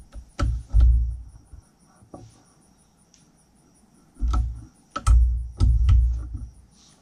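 Torque wrench on a socket extension ratcheting down the exhaust manifold bolts of a Yamaha 701 jet ski engine to 18 ft-lb: short bursts of clicks with dull knocks, about half a second in and again from about four to six seconds in.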